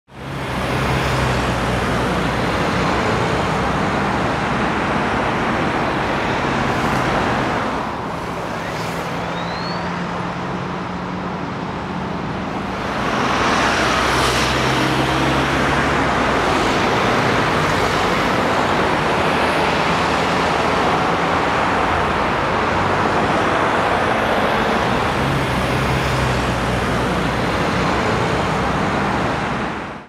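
Busy road traffic: a steady wash of cars, vans and lorries passing, with engine and tyre noise. It eases off for about five seconds a third of the way in, then picks up again.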